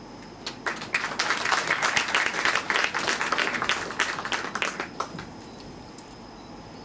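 Audience applauding. The clapping starts about a second in and dies away about four seconds later.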